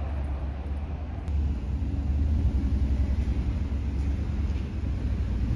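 Wind buffeting a phone's microphone: a steady low rumble with a rushing hiss above it.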